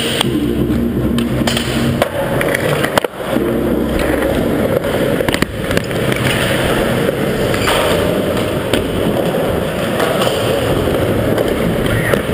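Skateboard wheels rolling over a concrete floor with a steady rumble, broken by a few sharp clacks of the board.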